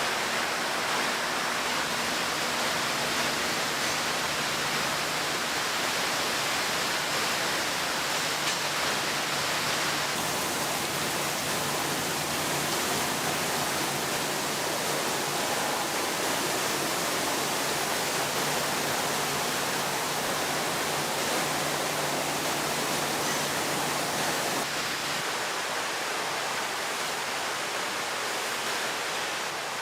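Steady hiss of paint-shop equipment, like rushing air or spraying, with a faint low hum underneath that stops about 25 seconds in.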